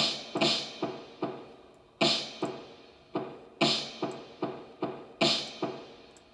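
Drums playing a steady repeating beat: sharp hits that each ring briefly and die away, with a stronger hit about every second and a half and lighter hits in between.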